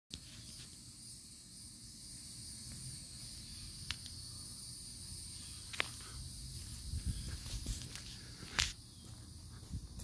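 Steady high insect chorus, with low rumbling thuds from footsteps and handling of the walking microphone growing stronger in the second half. Three sharp clicks, about four, six and eight and a half seconds in.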